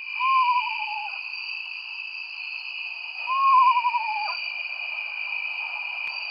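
Owl calling twice, about three seconds apart: each call rises briefly, then falls in a quavering tremble over about a second, with a steady high-pitched drone in the background.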